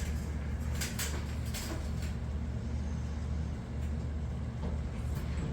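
A steady low mechanical hum, with a few light knocks and clicks over it near the start and again near the end.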